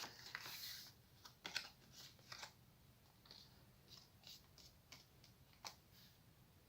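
Faint rustling and a scatter of light clicks and taps of a sheet of paper being handled and folded, with a louder rustle at the start.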